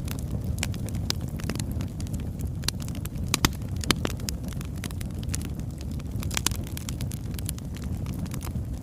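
Burning wood logs crackling and popping irregularly over a steady low rush of the fire, with two sharper pops about halfway through.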